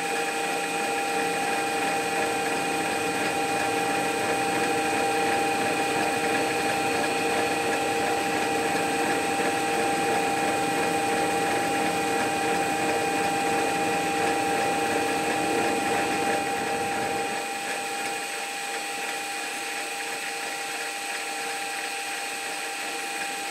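Metal lathe running with a steady multi-tone whine while a center drill in the tailstock is fed into a spinning phosphor bronze bush. About 17 seconds in, the sound drops a little and the low rumble fades out.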